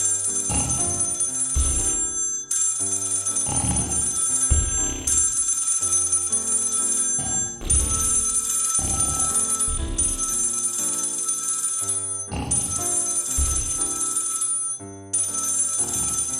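Cartoon music with a bell ringing over it in repeated spells of about two seconds, with short breaks between them.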